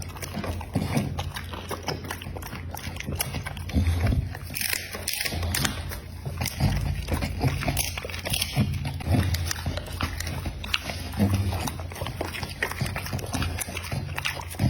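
An American Pocket Bully dog eating meat, chewing and biting with many irregular short clicks and crunches.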